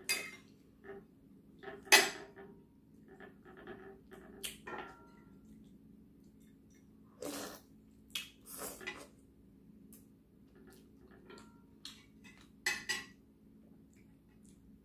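A metal spoon and fork clink and scrape against a ceramic soup bowl in a series of short, separate knocks while someone eats. The loudest clink comes about two seconds in, and a quick pair comes near the end.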